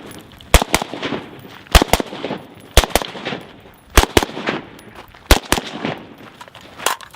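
Gunshots from a firearm fired at targets, mostly in quick pairs, with about six groups spread over several seconds.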